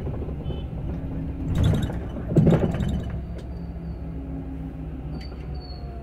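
Cabin noise of an Olectra K9 electric bus under way: a steady low road rumble with a faint whine, broken by two loud rattling jolts about one and a half and two and a half seconds in. Near the end a faint whine slides down in pitch.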